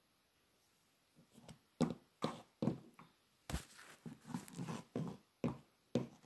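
Handling noise: a series of about ten irregular knocks and clicks, starting about a second in, as objects are moved and set down.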